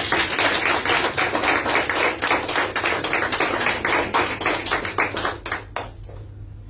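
Small audience applauding: a dense patter of hand claps that thins out to a few stray claps and stops about six seconds in.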